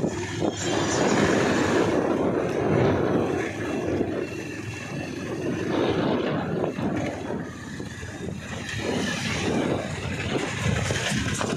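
Wind buffeting the microphone over the engine and road noise of a motorcycle riding close behind a bus on a rough dirt road.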